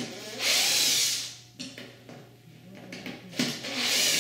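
Cordless drill driver backing screws out of a UPVC tilt-and-turn window sash, running in two short bursts of about a second each, one about half a second in and one near the end, each preceded by a click.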